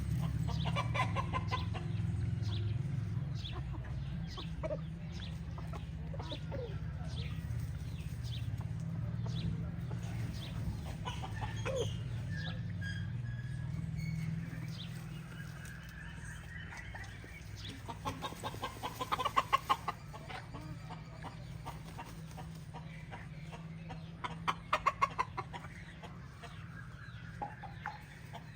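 Chickens clucking, with short bursts of rapid clucks about a second in, about two-thirds of the way through and again near the end. A low steady rumble runs under the first half and then fades.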